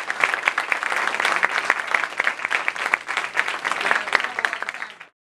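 Audience applauding, many hands clapping together; the applause cuts off suddenly near the end.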